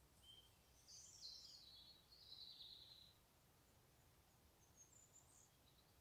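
A small songbird singing faintly: a short, high, warbling phrase about a second in, then a few brief high notes near the end.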